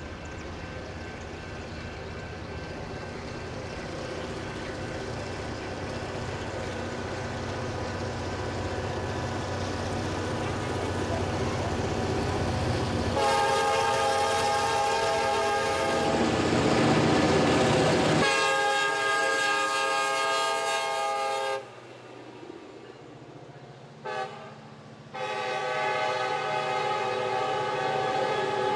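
A rebuilt EMD GP38-3 diesel locomotive approaches with its engine rumble slowly growing louder, then sounds its horn in the grade-crossing pattern (long, long, short, long) as it passes close by. Between the first two blasts there is a loud rush of engine and wheel noise as it goes past.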